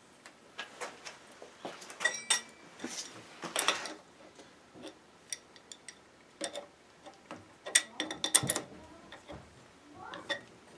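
Metal clicks, knocks and short clinks of tools and steel parts as a machine vise is bolted down to a small horizontal mill's table with T-nuts. The clinks come irregularly, in two denser clusters.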